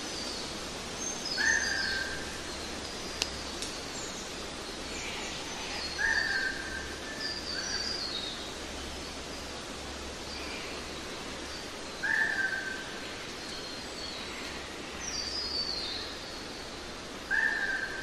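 Birds calling over a steady background hiss of a nature-sound recording. One bird repeats a short call four times, about every five to six seconds, while other birds give quicker, higher falling chirps in between.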